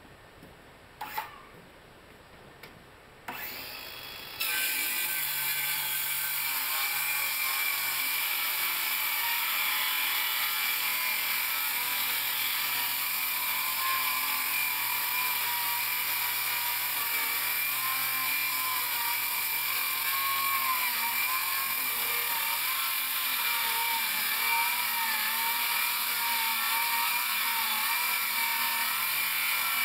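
A couple of short clicks, then a Ridgid 7-1/4-inch cordless circular saw starts about three seconds in and rips steadily through four stacked sheets of 1/2-inch CDX plywood. The motor's pitch wavers slightly as the saw is pushed hard through the cut.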